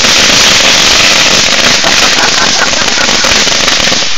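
Fireworks going off in a bonfire: a loud, dense, continuous crackle of many small pops that starts abruptly.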